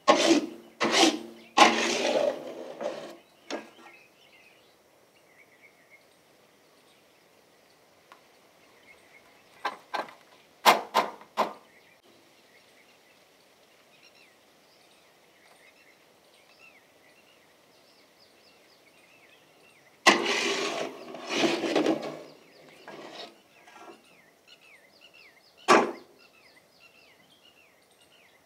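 Metal scraping and clattering in short bursts as cooked khoya is scraped out onto a steel tray, ending in one sharp knock. Faint birdsong chirps in between.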